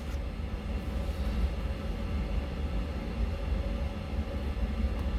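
Room heater running with a steady low rumble, no distinct clicks or knocks over it.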